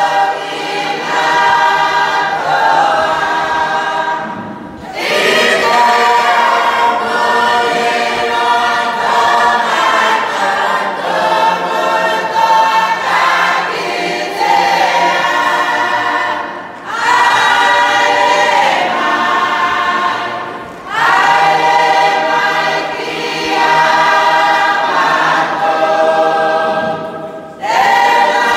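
A church congregation singing a hymn together, unaccompanied, with many voices at different pitches at once. The long phrases break off briefly for breath every few seconds.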